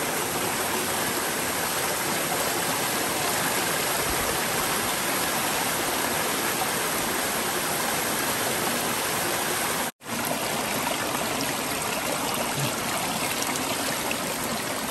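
A small rocky forest stream running and trickling over stones, a steady rush of water that cuts out for an instant about two-thirds of the way through.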